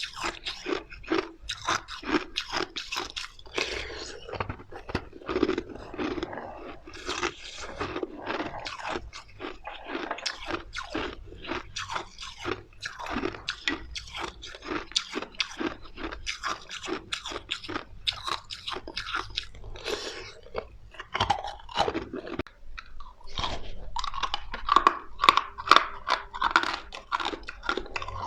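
Ice being bitten and chewed close to the microphone: rapid, crisp crunches one after another, with a short pause near the end before the chewing resumes.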